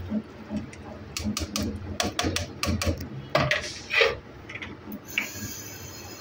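Scattered light clicks and taps of a steel cooking pot and spoon being handled, thickest about one to two seconds in.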